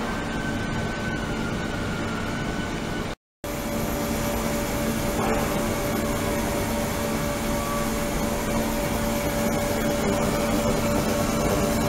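Ultrasonic cleaning tank running, with water in a plastic container inside it agitated by the ultrasound: a steady hiss and hum. It cuts out for a split second about three seconds in, and after that a steady hum tone is heard.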